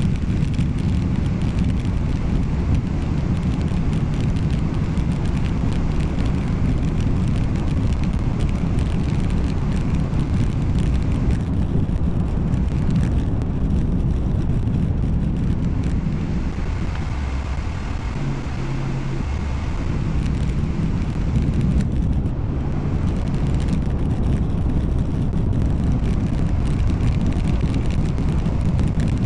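Steady low road and engine rumble of a moving car, heard from inside the cabin, easing slightly about two-thirds of the way through.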